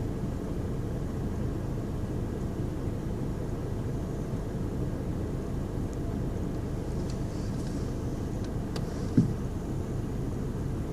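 2010 VW Golf BlueMotion's 1.6 four-cylinder diesel engine idling with a steady low rumble: the rough idle it has after starting. A single short thump about nine seconds in.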